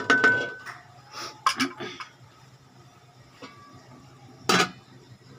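Wooden spoon knocking and scraping against an aluminium cooking pan: a cluster of clatters with a brief metallic ring at the start, a few more knocks about one and a half seconds in, then one louder metal clank about four and a half seconds in as the lid goes onto the pan.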